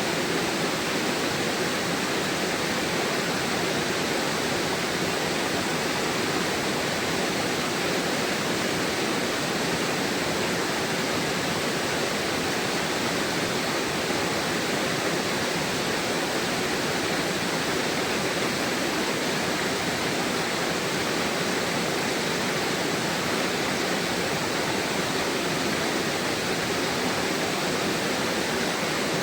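Rushing river water running over rocks, a steady unbroken rush.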